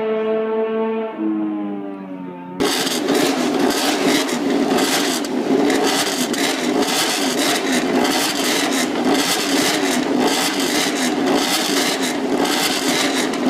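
A racing motorcycle engine holds a high, steady note, then drops in pitch as it comes off the throttle. About two and a half seconds in it cuts abruptly to a loud, harsh, dense noise with a fast pulsing texture that runs to the end.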